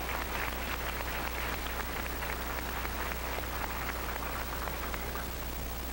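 Audience applauding, the clapping thinning out over the last couple of seconds, with a steady low hum underneath.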